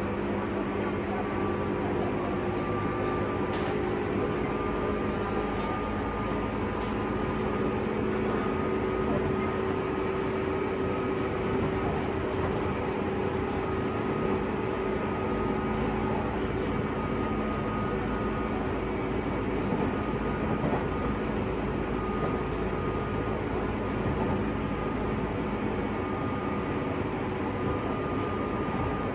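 JR West 201-series electric commuter train heard from inside a motor car while running between stations: steady rumble of wheels on rail with a continuous hum and whine from the running gear, and a few faint clicks in the first several seconds.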